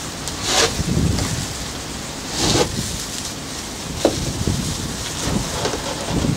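Spatula scraping fairing compound over a fiberglass honeycomb panel, in a few separate strokes about two seconds apart, over a low rumble of wind on the microphone. A sharp tick comes about four seconds in.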